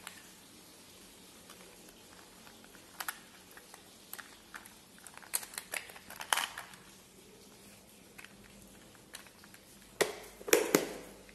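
Small plastic connector housings clicking and clattering as gloved hands sort through a plastic compartment organizer box. Near the end come a few louder plastic clacks as the box lid is closed.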